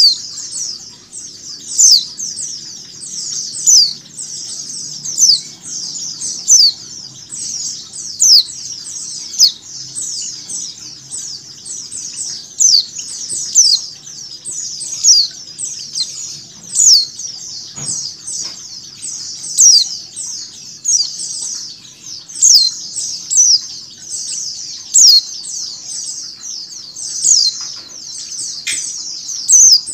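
White-eyes (pleci) calling without pause: a dense stream of short, high, falling notes, with louder single calls standing out about once a second. It is a female white-eye's calls mixed with the chatter of a flock.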